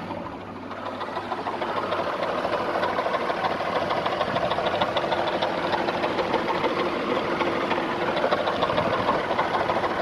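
Nissan VG33E 3.3-litre V6 engine running with a rapid, repeating knock, a little quieter for about the first second and then steady.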